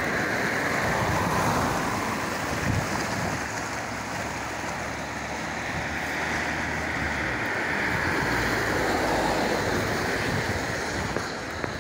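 A river in spate, its floodwater rushing fast in a steady, continuous noise of water, with wind buffeting the microphone.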